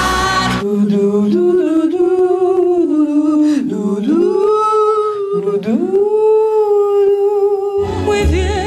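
A woman singing long held notes unaccompanied in a vocal lesson, twice sliding down in pitch and swooping back up. Loud band music cuts off just after the start and comes back near the end.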